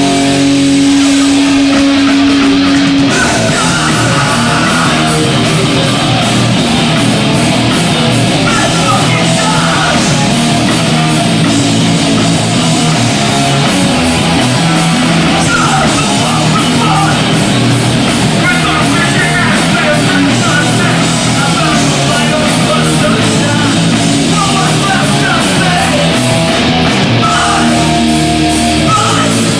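Hardcore punk band playing live, with loud distorted guitars, bass and drums. A held guitar chord rings for about the first three seconds, then the full band comes in with vocals.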